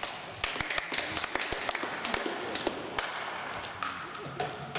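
Sharp, irregular clicks of a table tennis ball bouncing on the table and the wooden floor, echoing in a large sports hall.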